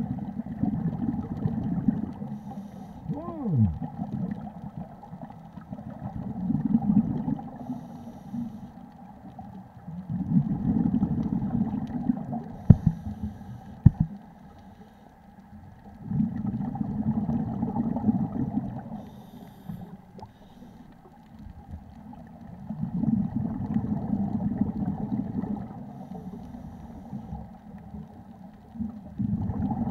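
Scuba diver breathing through a regulator underwater: the exhaled bubbles rumble in bursts about every six seconds, with fainter gaps between. A short gliding squeak near the start and two sharp clicks near the middle.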